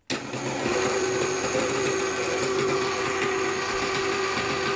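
Kenwood Chef stand mixer running at a slow speed, its beater working flour into cake batter: a steady motor whine.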